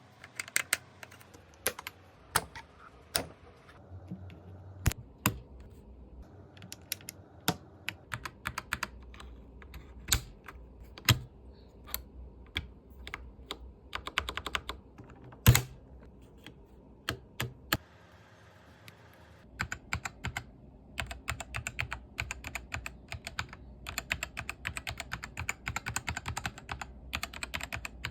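Mechanical keyboard with red linear switches being typed on: scattered single keystrokes at first, one much louder than the rest about halfway through, then fast continuous typing for the last several seconds.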